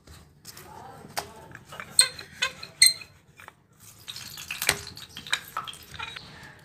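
Paratha dough being handled and rolled out with a rolling pin on a floured wooden board: scattered light knocks and clicks, with a denser stretch of rubbing and scraping about four seconds in.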